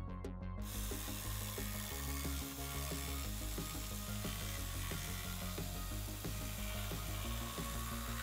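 Cordless jigsaw cutting through a thin plywood sheet, its blade buzzing steadily through the wood from about half a second in, with background music underneath.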